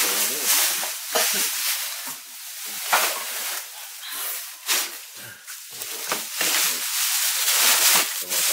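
Plastic garbage bags rustling and crinkling as they are handled and pulled open, in irregular bursts with a few sharper crackles.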